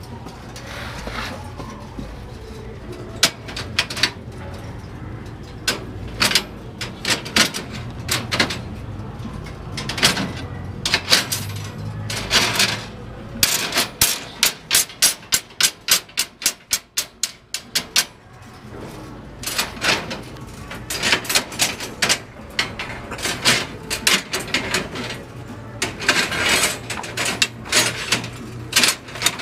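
Steel tie wire being twisted around rebar joints with a hand tying hook. It comes as quick runs of sharp metallic clicks and scrapes as the hook spins and knocks against the bars, over a steady low hum.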